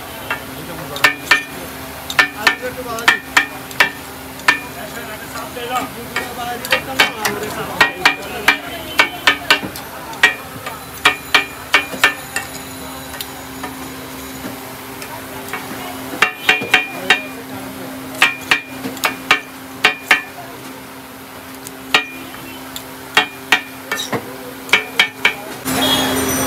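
A metal spatula chopping and scraping chicken on a flat iron griddle: sharp, ringing metallic clanks in quick runs with short pauses, over a steady low hum. Near the end it gives way to busy street noise.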